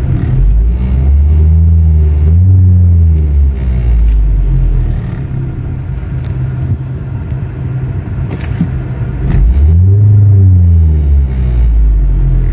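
Ford Focus engine heard from inside the cabin, revved up from idle and let fall back twice, with a heavy low rumble on each rev. It is the vibration-on-acceleration complaint, which turns out to be a worn engine mount.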